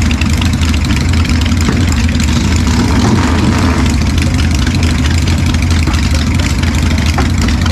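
Motorcycle engine running steadily with a low, even rumble.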